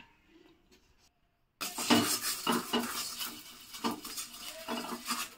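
A utensil scraping and rubbing around the inside of a non-stick frying pan in a run of uneven strokes, greasing the pan between crepes. The strokes start about a second and a half in, after a short near-silent gap.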